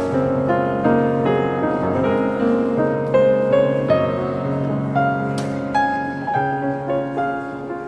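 Background music led by piano, with a sustained low bass line under it.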